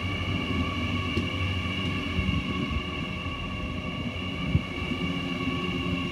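Hyundai Rotem D set double-deck electric train passing along the platform. A steady whine of several high tones sits over a low rumble, with one short knock about four and a half seconds in.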